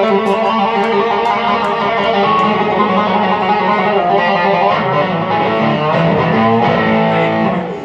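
Live rock band playing an instrumental passage: electric guitar over bass guitar and a drum kit. The music drops away near the end.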